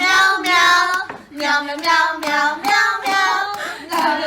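A high voice singing a run of "meow" syllables to a melody, about ten notes that step up and down in pitch, cutting off sharply near the end.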